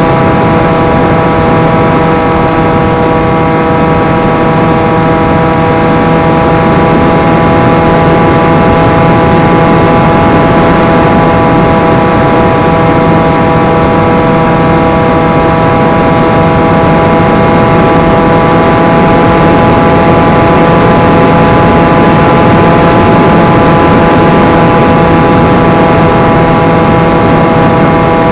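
Electric motor and propeller of a 1 m FPV flying wing in flight, picked up by its onboard camera: a steady whine of several held tones that does not change pitch, over heavy wind rush.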